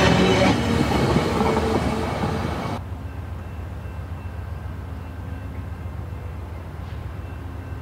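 VIA Rail LRC passenger cars rolling past close by, wheels clattering on the rails. The sound cuts off abruptly about three seconds in, leaving a much quieter low rumble with a faint steady hum.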